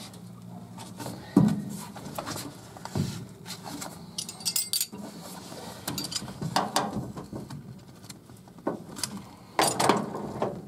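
Irregular metal clinks and clicks of wrenches and bolt hardware while seat belts are bolted in with grade 8 nuts and bolts, about half a dozen sharp knocks spread unevenly.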